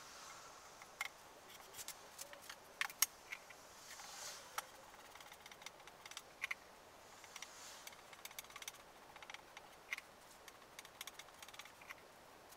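Wooden strips being handled and laid against each other on a workbench during a glue-up: scattered light clicks and knocks, the loudest about three seconds in, with a few brief soft scrapes.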